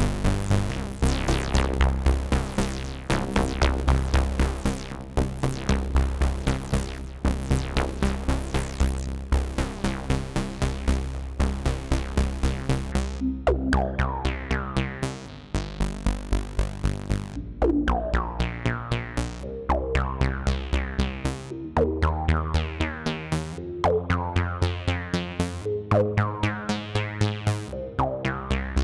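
Analogue Solutions Polymath paraphonic analog synthesizer playing a fast repeating sequence over a bass line. About halfway through, the bright top end drops away and each note opens with a falling resonant filter sweep.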